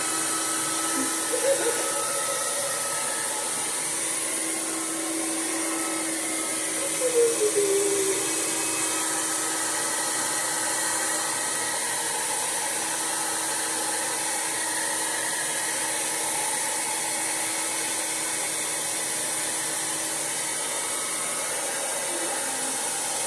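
Blow dryer running into a hooded hair-drying attachment: a steady airflow hiss with a constant hum. Two brief faint sounds rise over it, about a second and a half and seven seconds in.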